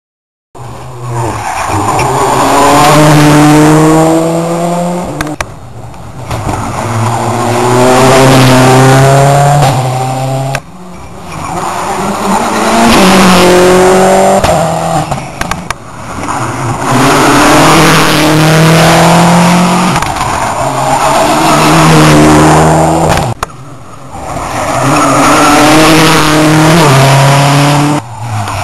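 Rally cars passing one after another at full speed, each engine revving hard and climbing through the gears with quick shifts, about five passes in all. The sound cuts off sharply between several of the passes.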